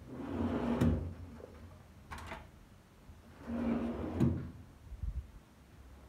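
Kitchen containers being handled and set down on a stone countertop: a few sharp knocks and clatters with rustling handling noise between them.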